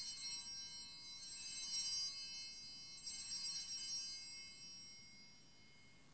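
Altar bells rung three times, about two seconds apart, at the elevation of the chalice after the consecration. Each ring is a high, shimmering jingle of several small bells that dies away, the last fading out near the end.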